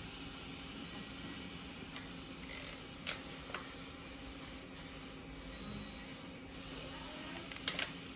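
Digital torque wrench giving two short, high, steady beeps, one about a second in and another about five and a half seconds in, each signalling that a rocker arm bolt has reached its set torque. A few light metallic clicks come between them and near the end.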